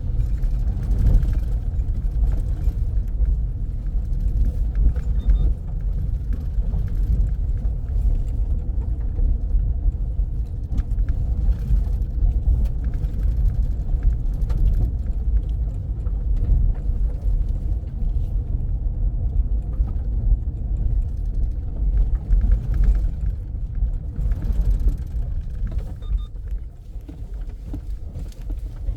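A car driving along a village road: a steady low rumble of tyres and engine, with faint light rattles.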